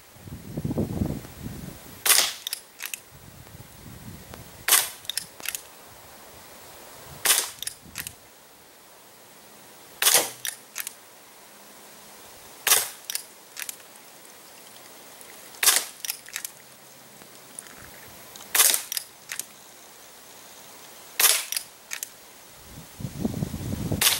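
Crosman Vigilante CO2 pellet revolver firing about nine shots, one every two and a half to three seconds. Each shot is a sharp crack followed by a fainter click or two.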